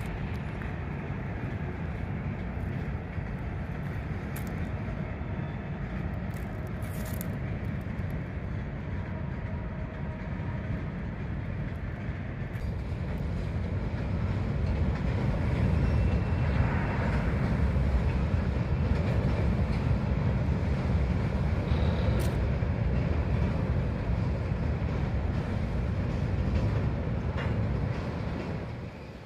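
Freight train of loaded coal hopper cars rolling across a steel girder bridge: a steady low rumble of wheels on rail with light clatter, getting louder about halfway through.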